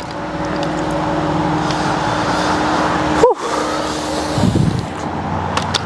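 Cub Cadet snowblower engine running steadily after being repaired from a no-start condition. A sharp break interrupts the sound once, about halfway through.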